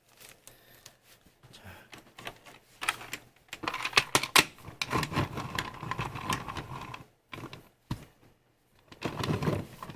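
Clicks, knocks and clatter of hardware being handled during assembly of a wheeled PC case stand. A steady whine sounds for a few seconds in the middle.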